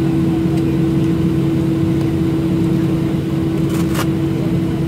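Cabin noise inside a Boeing 737-700 taxiing with its CFM56-7B jet engines at idle: a steady drone with a constant low hum. A couple of brief clicks about four seconds in.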